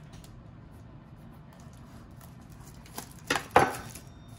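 A table knife scratching faintly as it slits the plastic shrink wrap on a trading card box, then the wrap crinkling sharply three times about three seconds in as it is torn away, the third crinkle the loudest.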